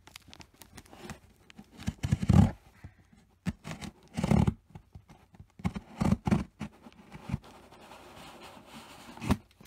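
Scissors cutting and scraping at the tape of a cardboard box, with irregular knocks and rustles from handling the box; the loudest bursts come about two, four and six seconds in.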